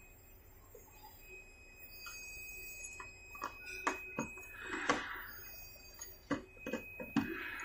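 Scattered light clicks and taps from hands working a cable connector on a plotter's sheet-metal stand, with a brief rustle about five seconds in. The first few seconds are almost quiet.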